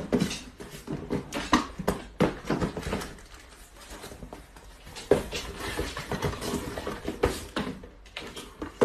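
Small cardboard boxes being handled, stacked and packed into a carton on the floor: irregular knocks, taps and scrapes of cardboard.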